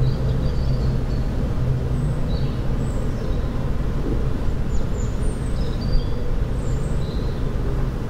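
Steady low rumble of engine noise, with a hum that fades about two and a half seconds in. Above it, faint short high chirps of small songbirds come scattered through.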